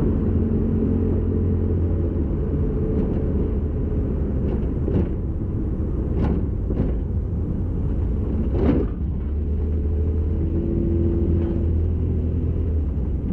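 A car driving along, heard from inside the cabin: a steady engine and road rumble with a few short knocks and rattles.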